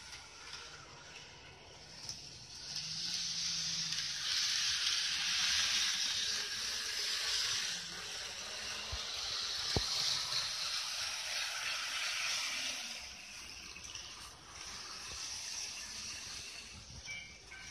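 Running noise of a model JR 313 series 3000 electric train on its track: a steady hissing whir of motor and wheels that swells about two seconds in, stays loud for roughly ten seconds, then eases off. A single sharp click sounds near the middle.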